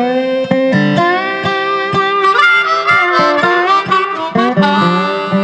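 Background music: a harmonica playing a bending melody over plucked guitar.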